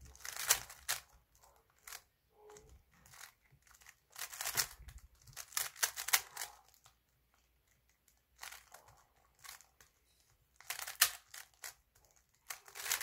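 Layers of a plastic stickerless 3x3 Rubik's cube being turned quickly by hand: bursts of rapid clicking and clattering, separated by pauses of a second or two.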